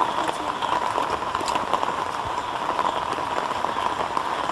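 Steady rain falling, with scattered drops ticking.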